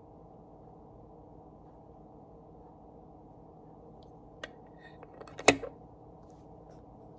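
A single sharp click about five and a half seconds in, with a few softer clicks just before and after it, over a steady low hum.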